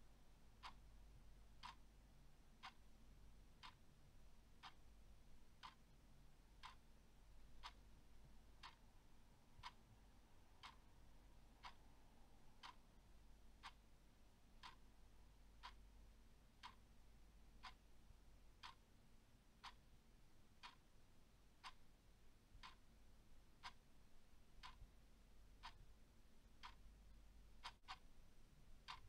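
Clock ticking steadily and faintly, one tick about every second, over a faint low hum.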